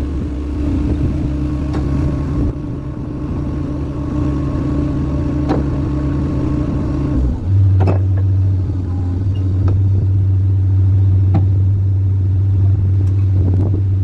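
Skid steer engine running steadily under load, its note changing about halfway through. A few sharp knocks are scattered through it.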